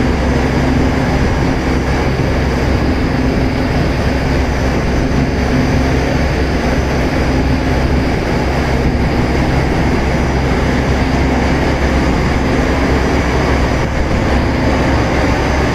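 Pulse-jet bag filter dust collector running, dominated by its centrifugal ID (induced-draft) fan at high speed: a loud, steady drone with a constant low hum.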